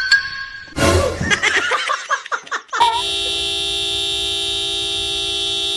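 A brief jumble of noisy, shifting sounds, then a steady horn-like tone that starts about three seconds in and holds without changing.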